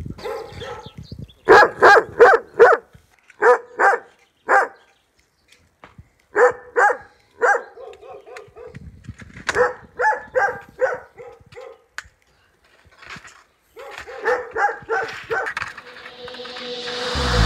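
A dog barking repeatedly in short, sharp clusters of three to five barks with pauses between them. Music fades in near the end.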